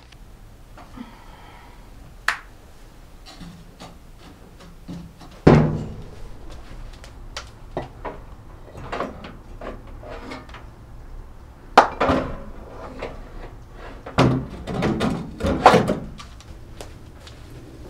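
Scattered knocks and clicks with a few heavier thuds as an electric fireplace heater is handled and set down on a base of bricks.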